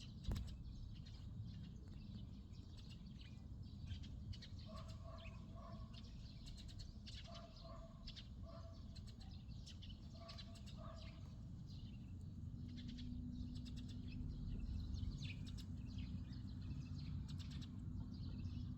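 Small birds chirping and twittering, many short high calls throughout. Three times in the middle a lower, slower call of a few notes on two pitches repeats, over a steady low rumble of outdoor background noise.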